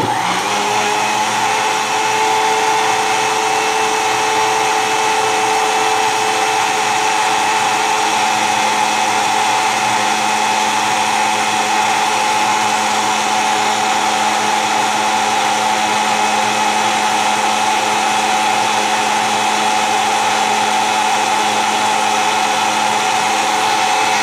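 Electric countertop blender switched on and running steadily, its motor whining evenly as it blends a thin batter of gram flour, yogurt, onion and water.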